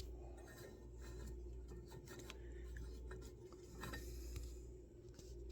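Faint scattered clicks and light rubbing of metal bench vise parts being handled, over a steady low electrical hum.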